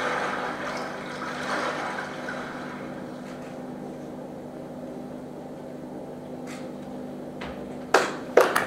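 The rock band's final note rings out and fades away into the hall, leaving a steady low hum. Near the end, a few sharp claps start the applause.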